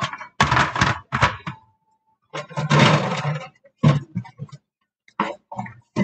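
Dishes clattering and clinking in a kitchen sink as they are hand-washed, in short irregular bursts of knocks and scrapes, with a short ringing note about two seconds in.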